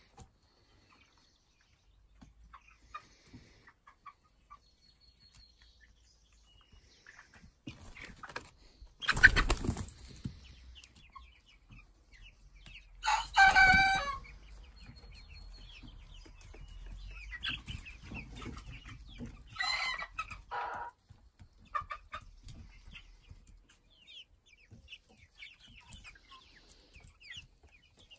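A flock of young chickens clucking and chirping, with a burst of wing flapping about nine seconds in. About thirteen seconds in comes a short, screeching crow from a young cockerel trying out his first crows, and a shorter call follows around twenty seconds in.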